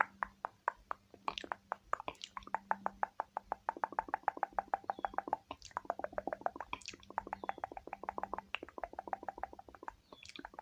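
Quick, even tapping on a makeup product, about seven or eight taps a second with a few short breaks, as in fast-and-aggressive ASMR tapping.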